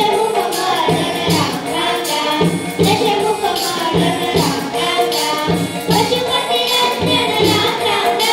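A group of children singing a song together through microphones, accompanied by a tabla beaten in a steady rhythm.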